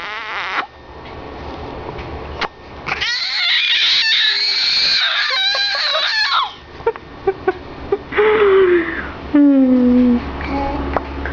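Playful nonsense vocal noises made to amuse a baby: long high-pitched wavering squeals, then a few short clicks, then a low voice tone sliding downward.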